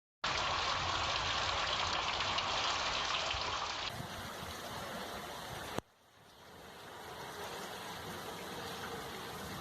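Rushing floodwater from a flash flood: a steady hiss of fast-flowing water, with abrupt changes in character about 4 s and 6 s in, the second a sudden drop that builds back up.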